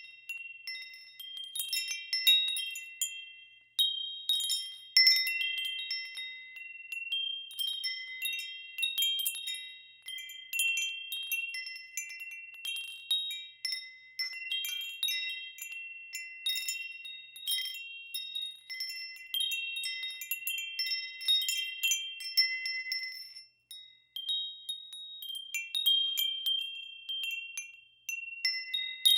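Wind chimes ringing in the wind: several high, clear tones struck in irregular clusters, each ringing on and fading, with a short lull a little before the end.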